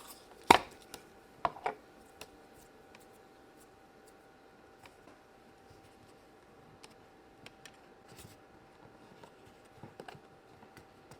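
Small plastic knocks and taps from handling Play-Doh and its tools on a table: one sharp knock about half a second in, two lighter ones soon after, then faint scattered ticks over a faint steady hum.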